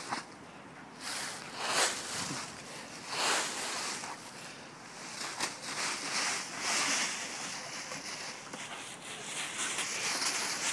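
Dry fallen leaves rustling in several swells of about a second each as a White Swiss Shepherd dog pushes its nose through them and digs.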